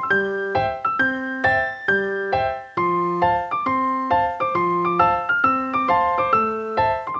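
Piano music: a steady, even stream of struck notes over lower bass notes.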